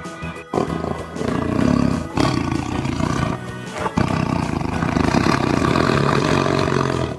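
Tiger roaring in long, rough roars, three in a row with short breaks between them, over background music.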